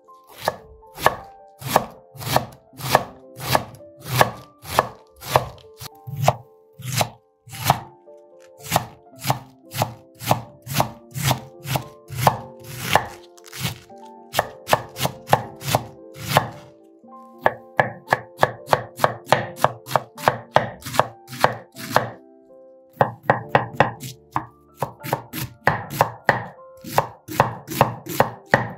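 Large kitchen knife finely shredding a head of cabbage on a wooden cutting board: an even run of chops knocking on the board, about two a second. There are short pauses about a third of the way in and again near the three-quarter mark, and the strokes come quicker just before the second pause.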